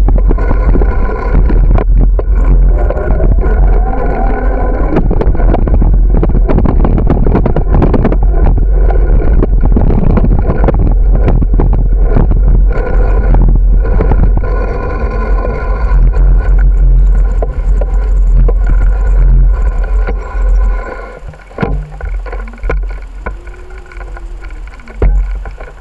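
Wind buffeting a bicycle-mounted camera's microphone, a loud, constant low rumble, mixed with the rattle and knocks of the bike rolling over pavement cracks. A little over 20 seconds in it becomes much quieter and uneven as the bike slows.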